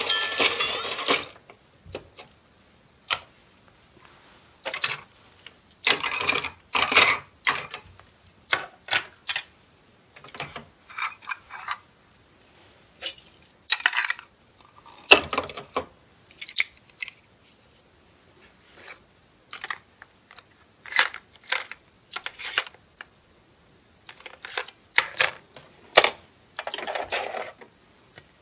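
Irregular clicks and clatter of plastic toy-kitchen pieces being handled, with metal tongs tapping against a plastic pot and play food. A pitched electronic sound from the toy cuts off about a second in.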